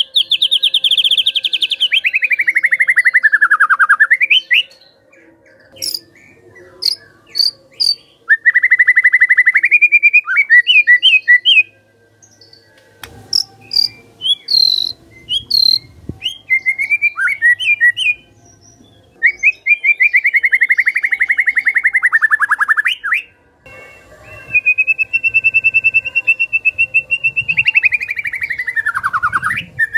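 White-rumped shama giving four long rattling calls, each a rapid train of pulses that falls in pitch, between bursts of short sharp whistled notes. This is the agitated rattle keepers call 'kretekan', played to provoke other shamas into song.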